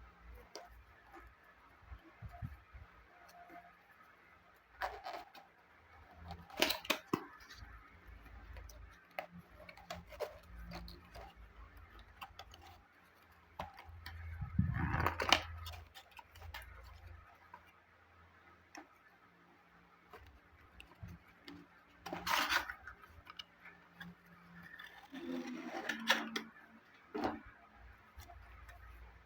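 Intermittent handling noises from a die-cast toy car and its cardboard and plastic packaging being unboxed: scattered sharp clicks and taps with short rustles, the loudest bunched around the middle and in the second half.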